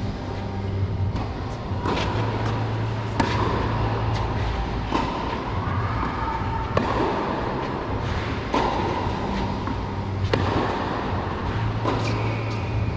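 Tennis balls struck by rackets in a baseline rally, seven sharp hits about every two seconds, over a steady low hum.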